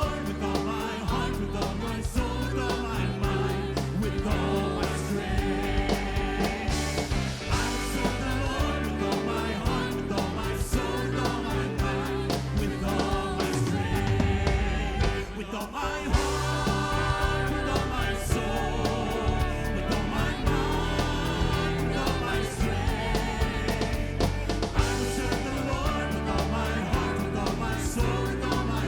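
Contemporary worship music: a church band with drums plays while voices sing.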